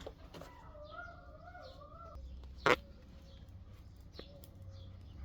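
Campfire with one sharp, loud pop about two and a half seconds in, before it a wavering whistle lasting about a second and a half, and faint high chirps of small birds over a low rumble.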